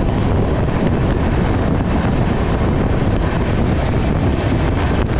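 Wind buffeting the microphone at the side of a moving passenger train, over the train's steady running noise on the rails.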